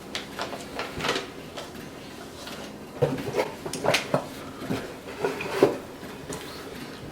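Contents of a fishing-tackle subscription box being handled and sorted: scattered light clicks, taps and rustles of cardboard and packaging, busiest in the middle.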